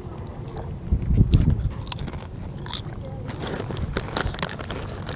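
Potato chips being bitten and chewed close to the microphone: a run of sharp, crackly crunches. About a second in there is a brief low thud, the loudest moment.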